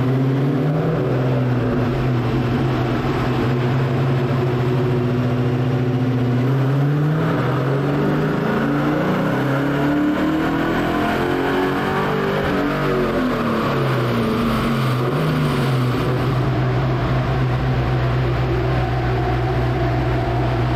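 Ford Mustang GT V8 running on a chassis dyno, naturally aspirated without the nitrous shot, in a baseline power pull. It runs at a steady speed, then revs climb for several seconds about a third of the way in, fall back, and settle to a steady run.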